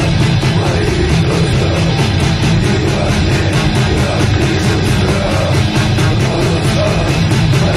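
Raw death metal recording: heavily distorted electric guitar and bass over dense, rapid drumming, loud and unbroken.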